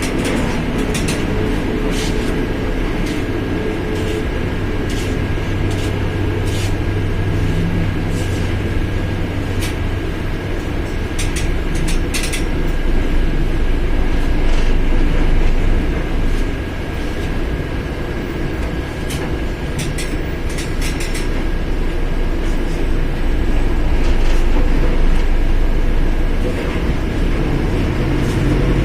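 Mercedes-Benz OF1721 BlueTec 5 bus under way: a steady low drivetrain rumble with a thin, constant high whine from the differential, and scattered rattles and clicks. The engine note rises near the end.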